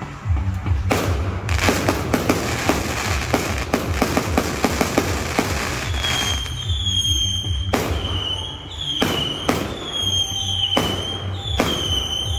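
Aerial fireworks going off: first a dense crackling barrage of rapid pops over a low rumble, then from about halfway a series of sharp bangs about a second apart, with a high whistle sounding between them.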